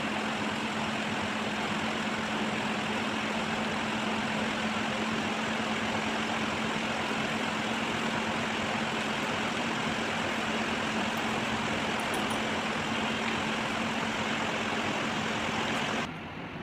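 Steady machine noise: an even hiss with a constant low hum underneath. It starts and cuts off abruptly, and stops about a second before the end.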